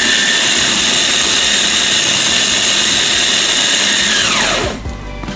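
Small electric food chopper running at a steady high whine as it grinds frozen mango cubes. About four seconds in it is switched off and the whine falls steeply in pitch as the blade spins down.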